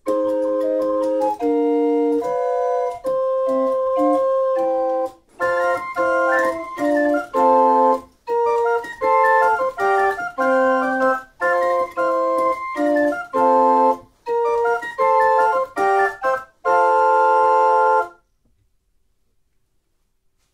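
Small wooden pipe organ (the Doe-Orgel) playing a lively piece in short chords and phrases with brief breaks, ending on a long held chord about 18 seconds in.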